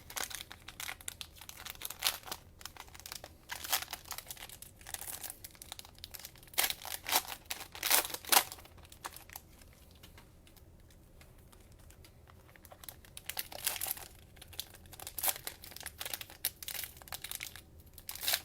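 Cellophane wrapping of Panini Mosaic cello packs crinkling and tearing in irregular bursts of crackles as the packs are pulled out of it, with a quieter pause in the middle.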